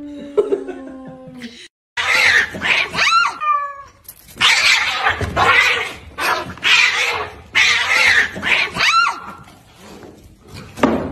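A cat's low, drawn-out growl, then after a short break several cats fighting, with loud, repeated yowls and screeches.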